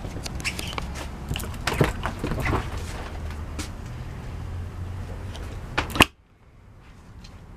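Clicks and knocks from handling the RV's refrigerator door as it is opened, over a low rumble of camera handling. A sharp knock comes about six seconds in, and then the sound cuts off abruptly.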